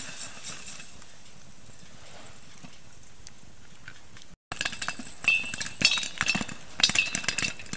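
Popcorn popping in a lidded metal kettle shaken over a campfire. A quieter first part with faint ticks gives way about four and a half seconds in to loud, repeated metallic clinks and rattles of the lid against the pot, mixed with sharp pops, as the kernels reach full popping.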